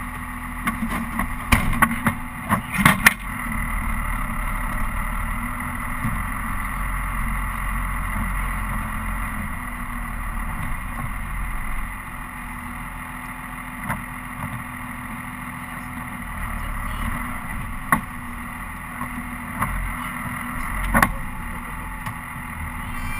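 Steady running drone of a Dodge pickup's Cummins turbo-diesel inline-six while driving, with a cluster of sharp knocks and clatters about two to three seconds in and another knock near the end.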